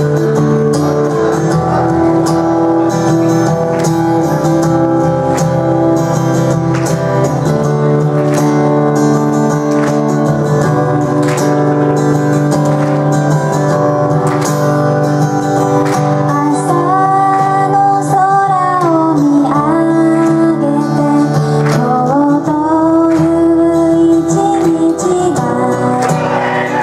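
Live pop song over a PA: an electro-acoustic guitar strums steady chords, and about sixteen seconds in a female voice begins singing the melody.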